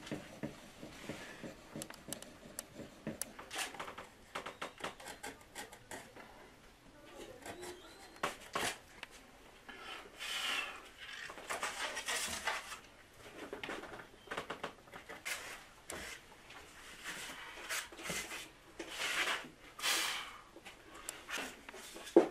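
Hand work on wooden oud parts at a workbench: intermittent scraping and rubbing strokes of a tool on wood, with scattered light clicks and knocks and a sharp knock near the end.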